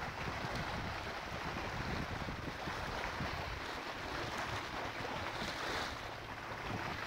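Wind buffeting the microphone, with choppy water lapping against a rocky shore: a steady rushing hiss over an uneven low rumble.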